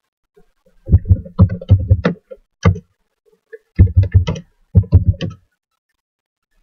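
A burst of loud, close knocks and clicks in four quick groups, each with a heavy, dull low end.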